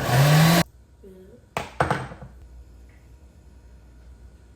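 Countertop blender motor whirring for about half a second, its pitch rising as it spins up, then cutting off suddenly. About a second and a half later come two sharp clunks, like the jar or blender being handled on the counter.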